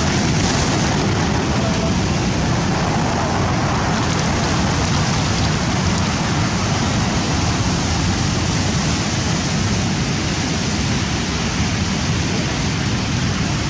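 Rough sea surf breaking and washing in a steady, unbroken rush of noise with a heavy low rumble.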